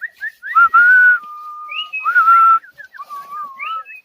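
A person whistling a tune: short notes that slide upward, a held note about a second in, then a wavering phrase near the end.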